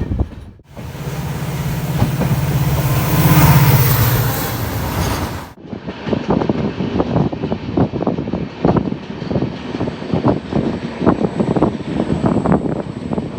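Train noise in two edited pieces. First comes a steady low hum with hiss over it, and then, after a sudden cut about five seconds in, a rough, uneven rumble of repeated pulses.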